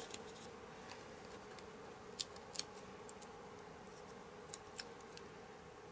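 Faint handling of card and paper: a few light, sharp clicks and taps from about two seconds in, as small paper pieces and adhesive foam pads are placed, over a faint steady hum.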